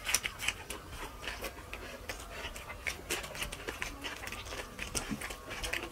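Close-miked eating sounds of two people eating fish curry and rice by hand: chewing and lip-smacking, heard as many quick, irregular wet clicks.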